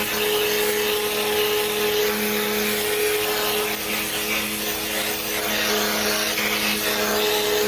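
A steady mechanical hum from a running motor or fan, with a few held tones over a constant hiss.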